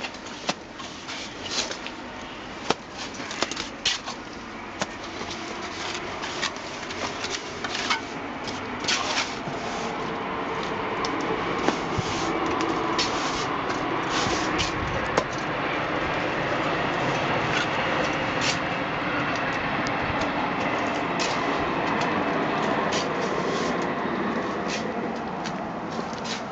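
Irregular sharp clicks and scrapes of a steel trowel throwing mortar onto a rough stone wall, with a steady noise that swells from about ten seconds in and becomes the loudest sound.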